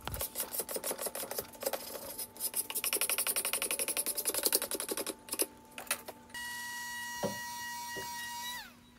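Hand scraper stripping the lacquer finish off an axe handle in rapid, even strokes. Near the end, a small power tool runs with a steady whine for about two seconds, then winds down as it is switched off.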